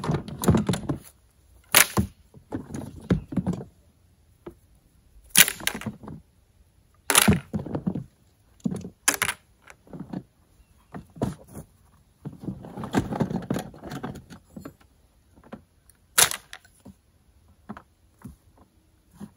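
Irregular knocks and clatters of PVC pipe pieces and plastic parts being lifted out of a plastic storage tub and set down. A longer stretch of rustling comes in the middle.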